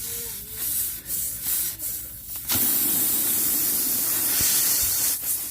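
Work on a punctured tire during a plug repair: a few short scrapes, then from about halfway a steady loud hissing rasp at the puncture that lasts nearly three seconds and stops just before the end.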